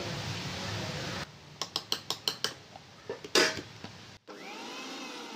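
Steel spoon scraping and tapping against the rim of a small steel mixer-grinder jar, about six quick taps to knock the powder off, followed by a short clatter as the steel lid goes back on the jar.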